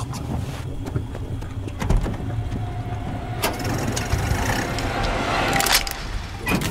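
Car engine running with a steady low rumble, with a few sharp knocks or clatters over it.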